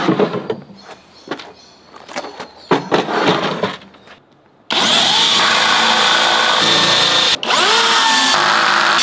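A few scattered knocks and taps, then about halfway through a power drill starts and runs loud and steady. It cuts out for a moment and spins back up.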